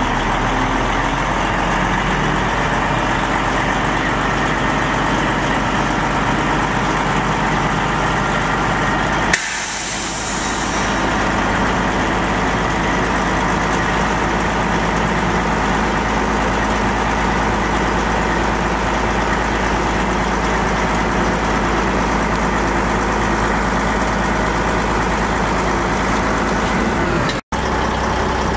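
Detroit Diesel 12.7-litre inline-six turbo diesel of a 1988 Freightliner FLC dump truck idling steadily. About nine seconds in, a sudden burst of compressed air hisses out and fades over about a second.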